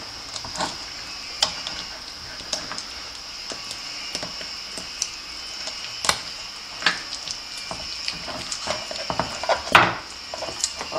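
Handling sounds of bamboo skewers being pushed through raw chicken on a metal rotisserie spit: scattered soft clicks, taps and squelches, with a sharper knock just before the end. A steady high-pitched whine runs underneath.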